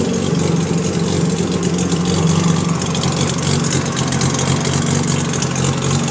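Freshly rebuilt Mazda 13B rotary engine of a 1993 RX-7 idling steadily on its first start-up, running smoothly.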